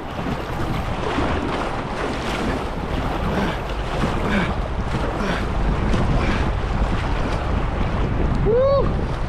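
Swift river current rushing around a canoe, with wind buffeting the microphone. A short pitched sound comes near the end.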